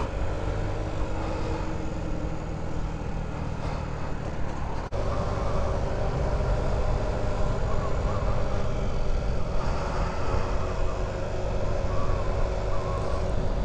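Honda Ruckus scooter being ridden along a city street: its engine runs steadily under heavy wind and road rumble on the camera's microphone, with a brief dropout about five seconds in.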